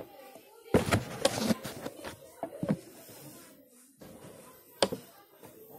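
A spoon clinking and scraping against a frying pan: a few scattered sharp knocks, the loudest about a second in and again near the end.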